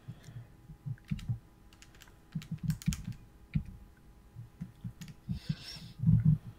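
Computer keyboard typing: uneven key clicks and soft knocks at an irregular pace.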